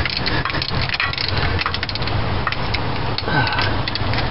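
Socket ratchet clicking in quick short strokes as a fuel pump mounting bolt is run down and tightened, over a steady low rumble.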